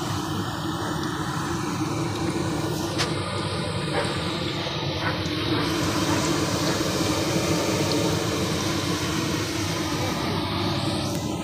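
Food deep-frying in a large wok (kadhai) of hot oil: a loud, steady sizzle from the vigorously bubbling oil, with a few light clicks.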